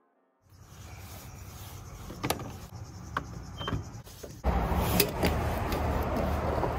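Fuel nozzle at a gas pump clicking and knocking as it is put into a car's open filler neck, over a steady background noise that steps up louder about four and a half seconds in.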